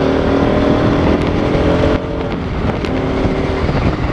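Bajaj Pulsar RS200's single-cylinder engine running steadily under way, with wind rush on the microphone. About two seconds in, the engine note dips and breaks up briefly, then settles into a steady note again.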